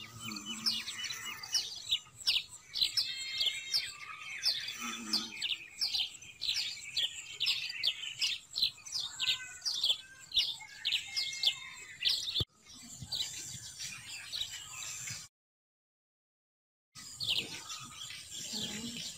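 Small birds chirping busily, many quick falling chirps over and over. The sound cuts off sharply about twelve seconds in, comes back fainter, drops out completely for about a second and a half, and then the chirping returns.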